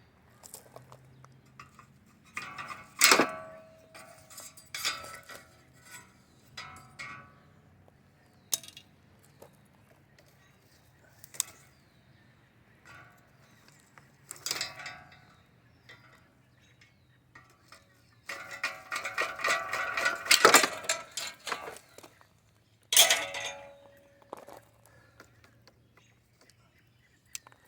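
Heavy cutters snipping through an air conditioner's aluminum coil tubing: a series of sharp snaps and metallic clinks with short ringing, the loudest about three seconds in and a busy run of them from about eighteen to twenty-four seconds in.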